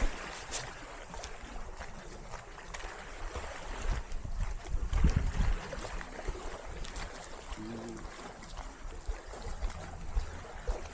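Seaside outdoor ambience with wind buffeting the microphone in low rumbling gusts, strongest about halfway through.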